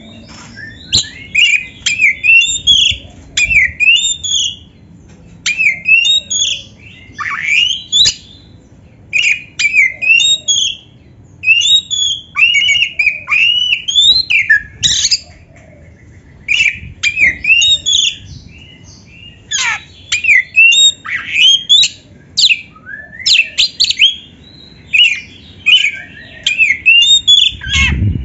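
Oriental magpie-robin (kacer) singing: fast runs of varied whistles, squeaks and harsh notes, sliding up and down in pitch, delivered in short phrases with brief pauses between them.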